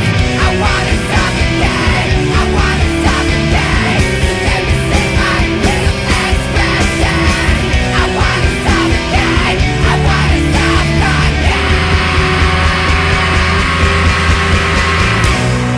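Studio recording of a post-hardcore rock band playing loud and full: distorted electric guitars, bass and a driving drum beat. About twelve seconds in, the hard beat gives way to a more sustained wash.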